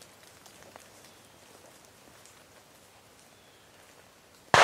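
A single shotgun shot near the very end, sudden and loud, its report trailing off. Before it there is faint outdoor quiet with a few light ticks.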